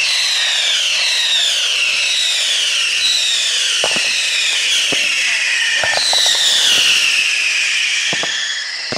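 A Bolognese-style fireworks battery firing a rapid volley of rockets from the ground: many overlapping whistles, each sliding down in pitch, over a constant rushing hiss. A few sharp cracks are scattered through the volley.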